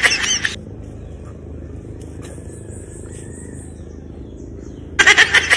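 Steady low outdoor rumble with a faint high buzz for a second or so in the middle. The loudest thing is a loud, bright burst of about a second that ends just after the start and recurs, looking the same, about five seconds in.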